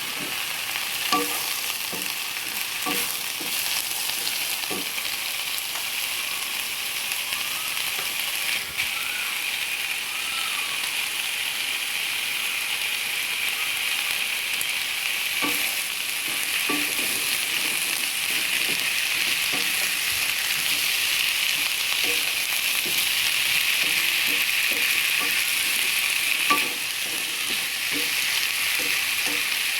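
Food sizzling in hot oil in a pan as it is stir-fried, a steady hiss with a spatula knocking against the pan now and then.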